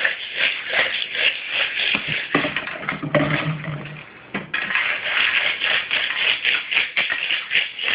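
Loose beads being shaken, a dense continuous rattle of many small clicks that lets up briefly about four seconds in.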